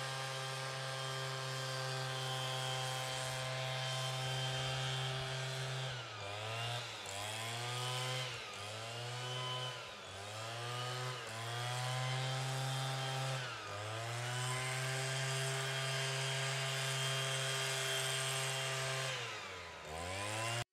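Small petrol engine running at high revs. It holds a steady pitch at first, then from about six seconds in its revs drop and recover again and again, roughly once a second. It runs steady again for a while, then dips once more near the end.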